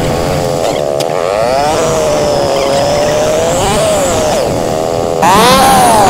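Small 125 cc single-cylinder motorcycle engine running under way, its pitch dipping and rising several times as the throttle is eased and opened. About five seconds in it gets louder and the pitch climbs.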